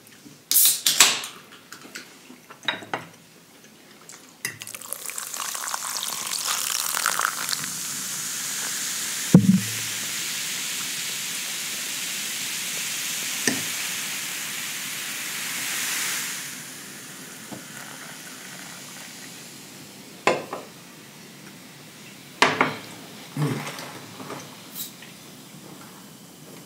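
A Pepsi can's pull tab cracks open with a short hiss about a second in. Then comes a long, high fizzing hiss of cola poured over ice in a glass, lasting about twelve seconds before it fades out, with one loud knock in the middle.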